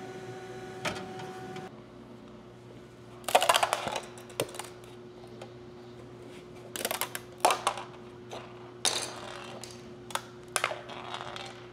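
Crackling snaps of freshly 3D printed plastic being pulled apart by hand, as in breaking away supports or a brim, in four short bursts with a few single clicks between. Under them runs a steady hum from the 3D printer, fuller for the first couple of seconds.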